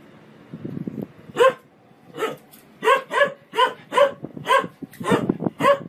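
A dog barking over and over: about nine loud, sharp barks in a quick, uneven string that starts a little over a second in, with a lower rumbling noise just before the first bark.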